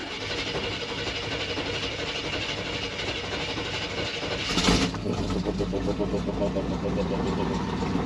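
Chevrolet truck's 454 big-block V8 being cranked on the starter, catching about four and a half seconds in with a brief flare, then running steadily at idle.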